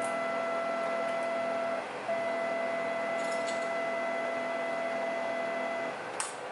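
Printer running, a steady whine that breaks off briefly about two seconds in and again near the end. A single sharp click comes near the end.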